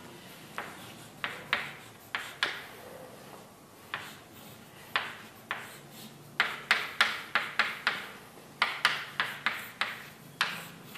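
Writing on a board during a lecture: a run of short, sharp taps and scratches of a pen or chalk stroke, irregular at first and then quicker, about four a second, in the second half.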